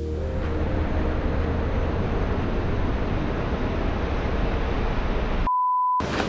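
Steady rushing water noise, an even hiss with a low rumble. Near the end it cuts out for about half a second, leaving a single steady beep.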